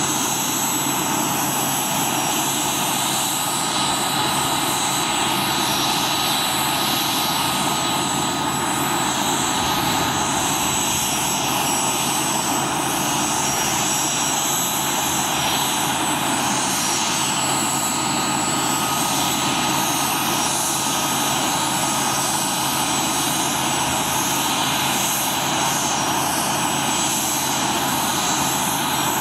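Boeing CH-47 Chinook helicopter's turbine engines running steadily on the ground during startup: a constant loud roar with a steady high-pitched turbine whine.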